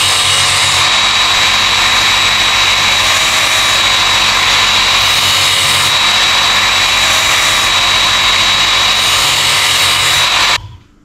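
Work Sharp Ken Onion Edition electric belt knife sharpener running with a steady high whine as a dull filleting knife is drawn across its abrasive belt to put a new edge on it. The motor cuts off abruptly near the end.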